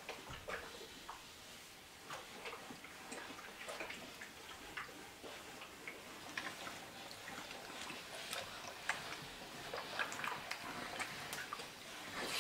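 Ironing: a steam iron sliding and being set down on cloth over an ironing board, with light, irregular clicks and fabric rustles.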